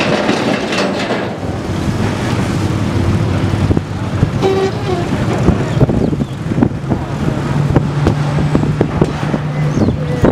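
Matatu minibus on the move: engine running with road and wind noise, and rattling knocks through the second half. A short horn toot about four and a half seconds in.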